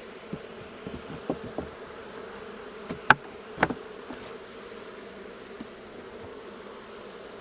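Honeybees of a queenless colony buzzing steadily around the open hive, with a few sharp knocks, the loudest about three seconds in.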